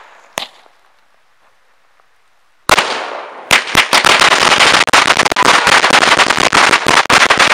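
A home-made string of about 270 firecrackers, dusted with gunpowder, going off. A single pop comes first, then about two seconds of quiet. Just under three seconds in there is a loud bang with a fading hiss, and from about three and a half seconds a dense, rapid chain of bangs as the crackers fire one after another.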